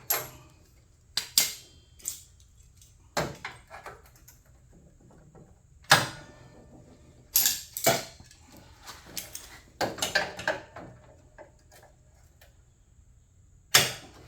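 Metal clamps being handled and fastened onto a steel hood patch panel: an irregular series of sharp metallic clicks and clanks, the loudest about six seconds in and near the end.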